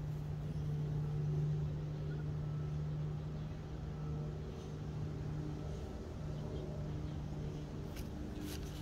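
A steady low motor hum, like an engine running in the background, with a few light clicks near the end as the garnets are handled.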